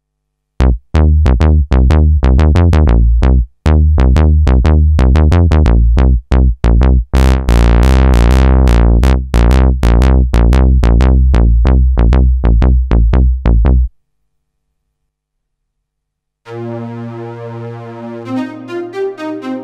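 Novation Peak hybrid synthesizer playing its 'Todd Bass' factory preset: a fast run of short, deep bass notes whose tone opens up brightly in the middle as the filter cutoff is turned up, then darkens again. After a pause of about two seconds, the 'Marcato Bowes' preset comes in with sustained, layered notes.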